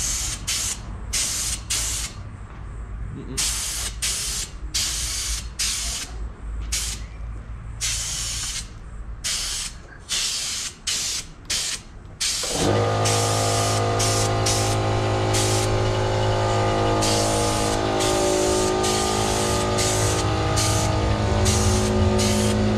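Clear gloss varnish being sprayed onto engine sheet-metal parts: short hissing spray bursts, one after another with brief gaps. About halfway through, a steady machine hum starts and runs on underneath the spraying.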